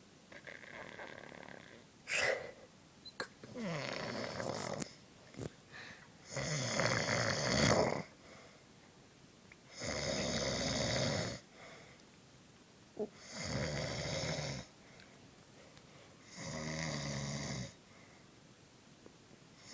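A sleeping man snoring: a series of long, rasping snores, one about every three seconds. There is a short sharp sound about two seconds in.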